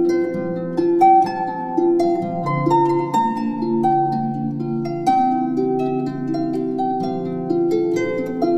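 Instrumental background music: a melody of plucked notes ringing over sustained lower notes.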